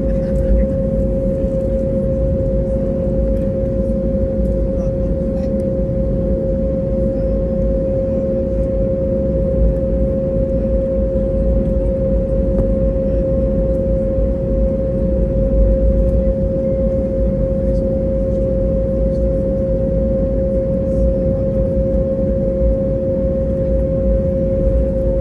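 Cabin sound of an Airbus A320neo with Pratt & Whitney PW1100G geared turbofans, on the ground after landing: a steady low rumble with a constant hum above it.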